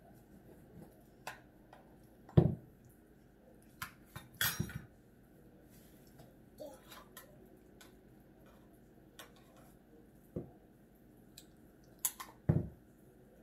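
Bowls and cutlery knocking and clinking on a dining table as a toddler handles her plastic bowls during a meal: scattered short knocks, the loudest about two seconds in, around four and a half seconds, and near the end.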